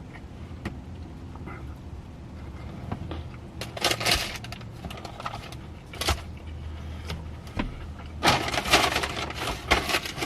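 Paper takeout bag crinkling as it is rummaged through, in a few short crackly bursts with a longer spell near the end.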